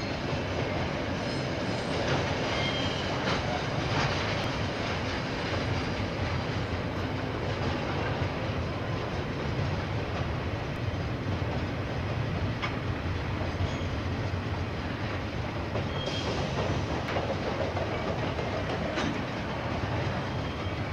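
KiwiRail freight train passing: a steady rumble of wagons rolling on the rails, with a few faint clicks of the wheels scattered through it.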